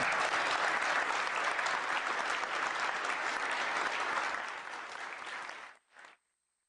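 Audience applauding, a dense steady clapping that tapers slightly and then cuts off suddenly about six seconds in.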